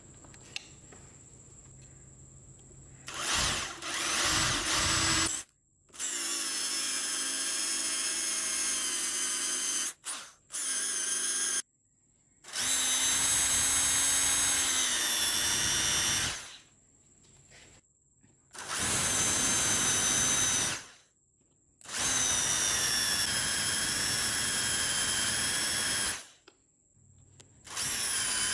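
Electric drill run in about seven separate bursts of one to four seconds each, starting and stopping abruptly, its motor whining as it works into the aluminium motor housing of an old angle grinder. The first few seconds hold only faint handling before the drill first starts.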